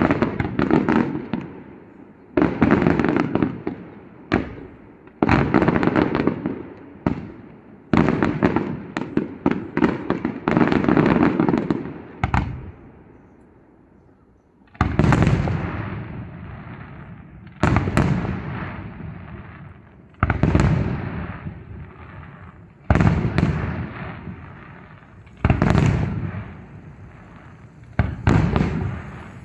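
Aerial fireworks shells bursting one after another, each a sudden bang with a long rolling echo. In the first half the bangs come about every second and a half with crackling tails. After a short lull they give way to deeper, heavier booms about every two and a half seconds.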